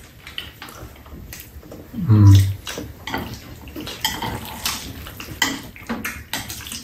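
Metal chopsticks clicking and tapping against ceramic bowls and a metal tray during a meal, in many small irregular clicks. A short voiced sound, like a brief murmur, comes about two seconds in and is the loudest moment.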